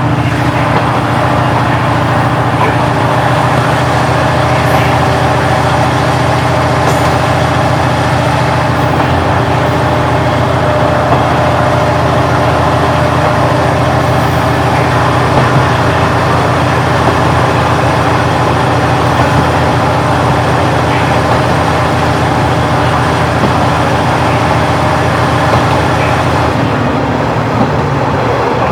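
Diesel engine of a KiHa 40-series railcar, in its original-type DMF15HSA form, idling steadily with a low, even drone.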